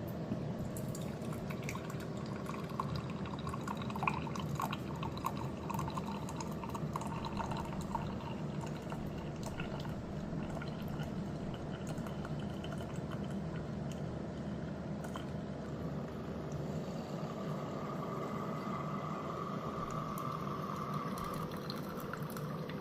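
Pantrymade 2-in-1 coffee maker brewing a single cup from a pod: a steady low machine hum with coffee streaming and dripping into the cup. A faint steady whine joins in about three-quarters of the way through.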